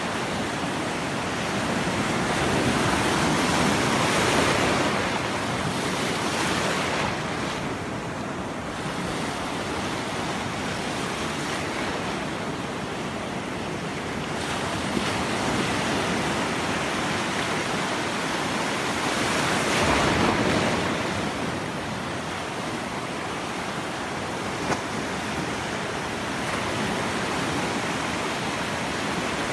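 Sea surf washing steadily on the shore, swelling louder twice, about four seconds in and again about twenty seconds in.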